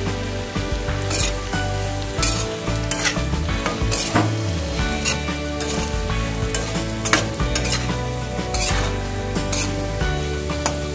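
Potato cubes frying and sizzling in a metal kadhai while a flat metal spatula stirs and scrapes them, with sharp scrape-and-clink strokes every second or so. The potatoes are being tossed to mix in freshly added salt and garam masala.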